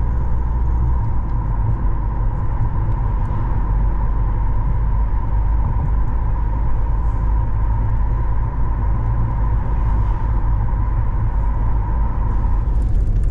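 Car road noise heard from inside the moving vehicle: a steady deep engine and tyre rumble, with a thin steady whine that fades out near the end.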